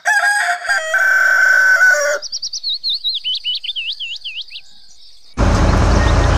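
A rooster crowing for about two seconds, followed by a small bird's rapid run of chirps that dip in pitch. About five seconds in, a loud, steady engine-like noise with a low hum starts suddenly.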